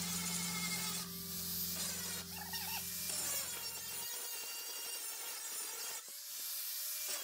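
Handheld angle grinder grinding the steel edge of a flattened lawnmower blade: a steady motor hum under the hiss of the disc on the metal. The low hum stops suddenly about four seconds in.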